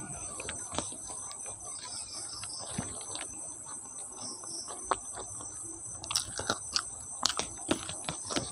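Close-miked eating by hand: wet chewing and lip smacks with scattered soft clicks, and fingers squishing and mixing rice with curry on a plate. The clicks come more often after about six seconds.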